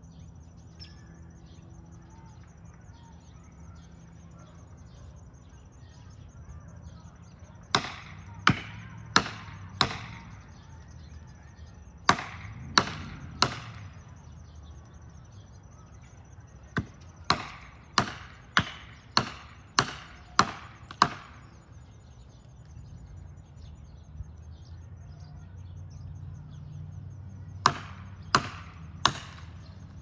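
Sharp striking blows at the base of a tree being felled, with no saw running. They come in several runs of a few blows about two-thirds of a second apart, the longest run eight blows in a row.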